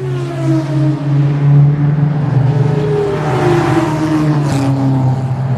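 An engine running steadily, its pitch sliding down and back up as the revs change.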